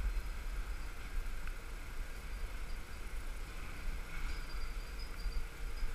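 Steady low rumble of a container crane's machinery heard inside the operator's cab while the crane runs between container moves, with a faint high whine joining about four seconds in.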